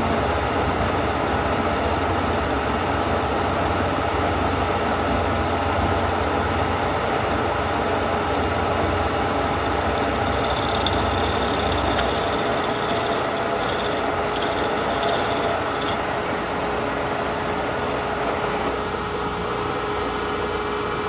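Kearney & Trecker milling machine running, its 3.5-inch high-speed steel shell mill cutting a cope in tubing under power feed: a steady machine hum with the scraping of the cut, which turns harsher and higher from about ten to sixteen seconds in.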